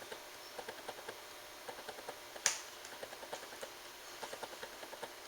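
Light clicking and ticking of small screws being handled and turned back into the laptop screen assembly with a small screwdriver, in quick clusters, with one sharper click about two and a half seconds in.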